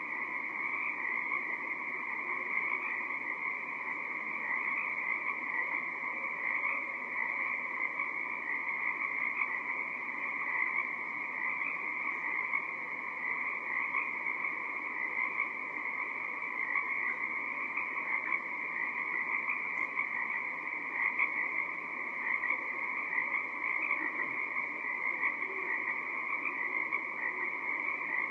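A dense, unbroken spring breeding chorus of many male Pacific tree frogs, their calls overlapping into one steady din.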